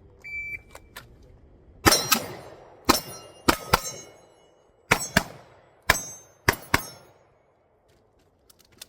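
A shot timer's start beep, then about ten pistol shots fired over about five seconds, several as quick pairs, with steel targets ringing after the hits.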